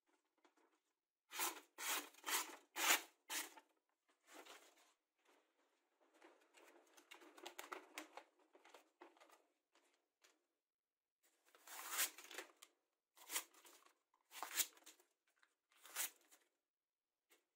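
A freshly sharpened knife slicing through sheets of paper as a sharpness test: five quick cuts in a row, then softer paper rustling, then four more cuts.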